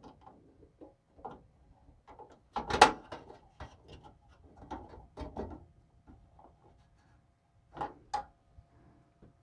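Small screwdriver and screws clicking and knocking against the metal PC case while a motherboard is being screwed in, with a louder clatter about three seconds in and two sharp knocks near the end.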